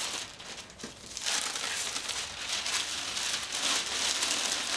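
Tissue paper rustling and crinkling as it is wrapped and folded around the stems of a flower bouquet, growing steadier about a second in.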